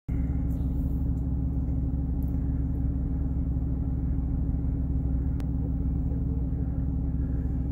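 A vehicle's engine idling steadily with a low, even hum, heard from inside its cab. A brief click sounds about five seconds in.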